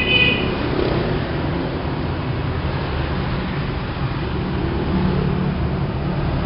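Steady loud low mechanical rumble, with a brief high tone right at the start.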